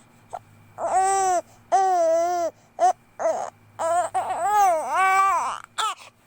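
Two-month-old infant crying in a string of short, wavering wails, each about half a second to a second long, with brief quiet gaps between them.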